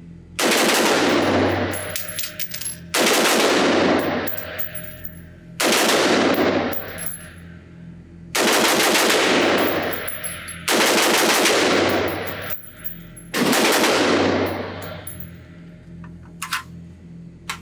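Sig Sauer M400 AR-15 pistol in 5.56 fired in six quick strings of rapid shots, about every two and a half seconds, each string ringing on in the echo of an indoor range.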